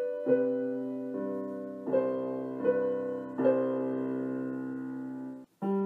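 Background piano music: slow chords struck about once a second that ring on and fade, cutting out briefly near the end.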